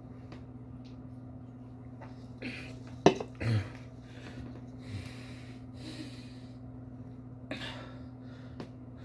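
A person breathing and sniffing through the nose in short breaths, with a sharp click about three seconds in followed at once by a short low grunt. A steady low hum runs underneath.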